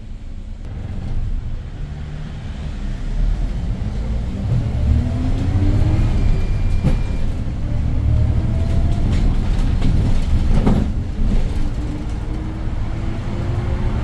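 The CNG engine of a 2022 Hyundai New Super Aerocity city bus (C6AF Q290, 290 ps) pulls hard as the bus accelerates, heard from inside the cabin. The engine pitch climbs early on, falls back at a gear change of the manual gearbox, and climbs again near the end.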